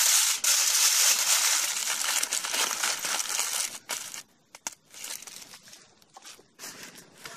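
Aluminium foil crinkling and crackling as it is folded and pressed into a parcel by hand. It is loud and continuous for about the first four seconds, then turns to softer, scattered crackles.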